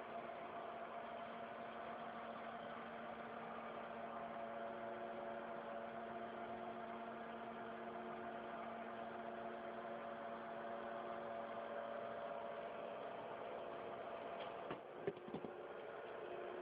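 Industrial three-axis CNC mill running with a steady mechanical hum made of several held tones, with a few short clicks about fifteen seconds in, after which the tones shift slightly.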